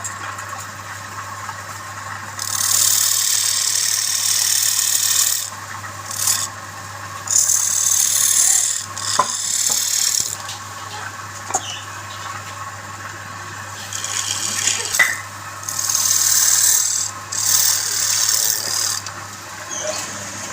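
Wood being scraped and abraded by hand in about nine irregular strokes, each half a second to three seconds long, over a steady low hum.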